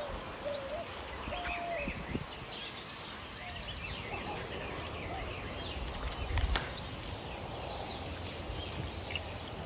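Outdoor ambience of many short bird chirps over a steady low rumble, with a few short mid-pitched calls in the first two seconds and one sharp click about six and a half seconds in.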